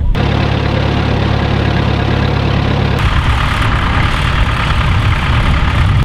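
Tractor engine idling steadily; about halfway through, the sound changes abruptly to a rougher rumble.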